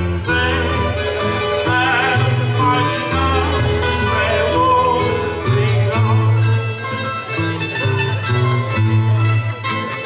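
Traditional Azorean cantoria ao desafio: a man sings a sung verse at the microphone over a steady plucked-string accompaniment of acoustic guitar and mandolin-type instruments. Near the end the singer steps back and the strings carry on alone.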